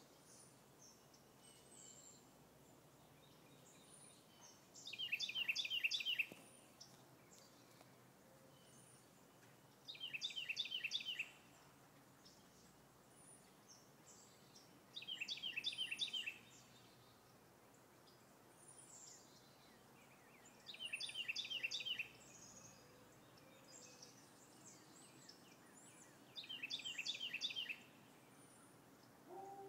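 A songbird repeating a short, loud song of rapid repeated notes, about a second long, five times at intervals of roughly five seconds. Faint high chips from another bird sound between the songs over a quiet rural background.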